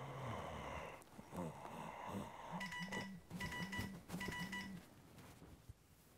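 Mobile phone on a nightstand going off: three short bursts of rapid electronic beeps, each with a low buzz beneath it.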